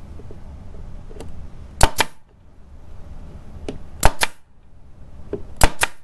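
Brad nailer firing three times, about two seconds apart, driving brads into wood. Each shot is a sharp double crack, preceded by a lighter click.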